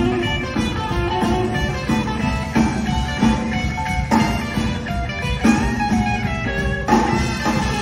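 Live band playing an instrumental break in a bluesy style, led by electric guitar on a hollow-body electric guitar, with the band backing it.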